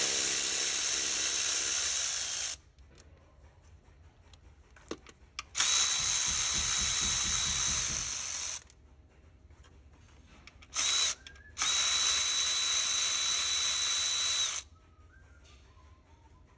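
Cordless electric ratchet spinning out 10 mm-head screws. The motor runs with a steady high whine in three runs of about three seconds each, with a short blip before the last one.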